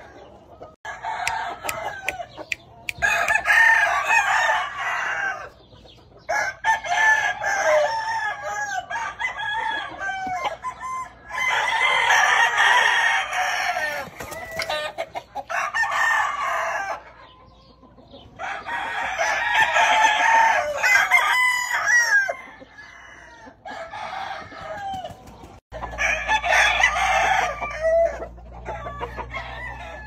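Gamecock roosters in pens crowing one after another, about eight crows, each a second or two long, with short pauses between.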